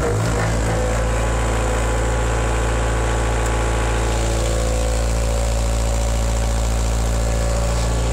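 1988 Ford New Holland L553 skid steer's four-cylinder Kubota diesel idling steadily at low throttle, moments after a cold start with the glow-plug preheat.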